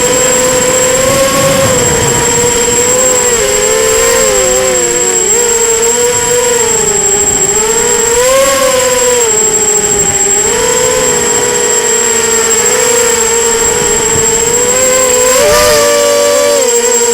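Brushless motors and propellers of a 250-size FPV racing quadcopter buzzing in flight, the pitch rising and falling with the throttle as the motors speed up and slow down against one another. A steady high-pitched whine runs over it, and the pitch jumps up briefly near the end.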